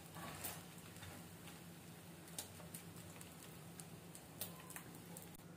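Faint crackle of butter under bread slices toasting on a hot iron tawa, with a few scattered soft ticks over a low steady hum.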